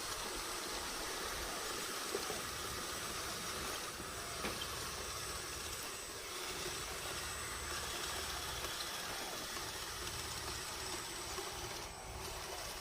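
Bulldozer running: a steady hiss and rumble with a thin high whine, and a few faint clicks.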